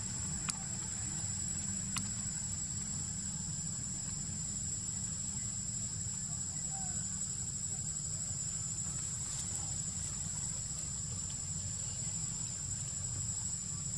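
Steady high-pitched drone of insects stridulating in the forest, unbroken throughout, over a low steady rumble. Two faint clicks sound within the first two seconds.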